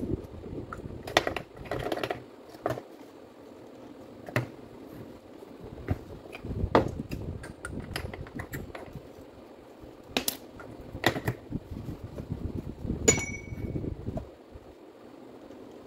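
Metal parts of a Makita M8700 rotary hammer drill's gear assembly being handled and fitted together by gloved hands: irregular clicks and light knocks with glove rustle. Near the end one knock rings briefly like struck metal.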